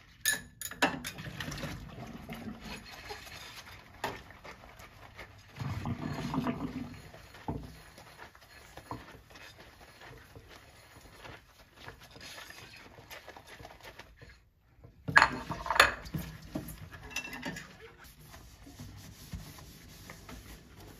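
Hand washing-up at a stainless steel sink: dishes and utensils clinking and clattering, with rubber-gloved hands and a sponge scrubbing in between. The loudest clatter comes about fifteen seconds in.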